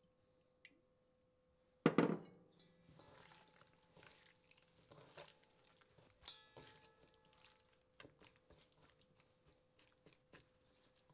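Hands massaging raw chicken pieces with olive oil, garlic and rosemary in a stainless steel bowl to marinate them: soft wet squelching and small clicks against the metal. About two seconds in, a single sharp knock rings briefly.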